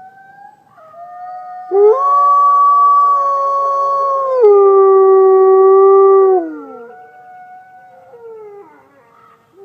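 Wolves howling together: several long, steady howls overlap at different pitches. The loudest starts about two seconds in, steps down in pitch midway, and fades out with a falling slide near seven seconds, leaving quieter howls.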